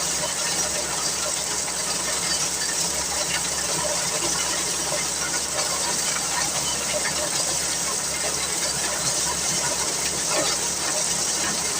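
An engine running steadily, with a constant hiss over it.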